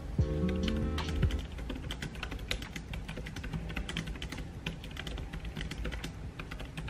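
Typing on a compact wireless computer keyboard with round keys: a quick, uneven patter of key clicks.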